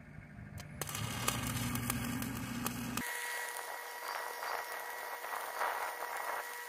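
Stick-welding arc on a pipe weld, run uphill at about 107 amps, crackling with many sharp pops. About three seconds in the sound turns to a steadier hiss with a faint high whine.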